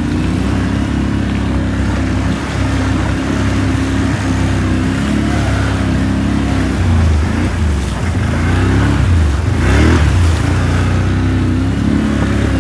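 Quad bike engine running under way, its note rising and falling as the throttle changes.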